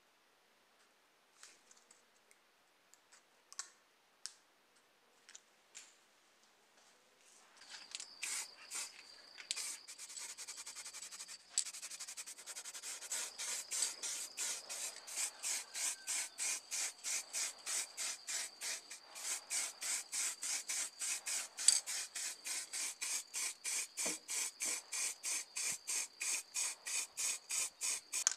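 Spray paint hissing onto a scale-model car body in short, even bursts, about two or three a second, with a faint steady whistle from the nozzle. A few light clicks of the plastic body being handled come first.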